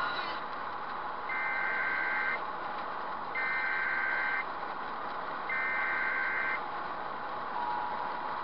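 Three long electronic beeps, each about a second, spaced about two seconds apart, over steady road noise inside a moving vehicle's cabin; a steady lower-pitched tone starts near the end.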